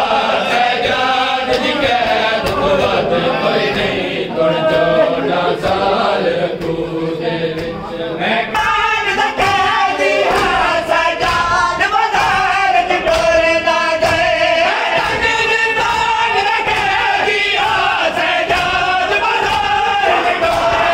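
A group of men singing a noha, a Shia lament, in unison behind a lead reciter. Under it run evenly spaced slaps of matam, hands striking bare chests, which grow more prominent about eight seconds in.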